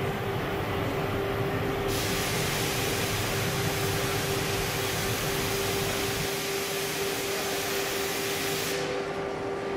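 Steady rushing noise of a glassworks reheating furnace (glory hole) firing while a gather of glass on a blowpipe is reheated in it, with a constant hum running under it. The hiss turns brighter about two seconds in and duller near the end.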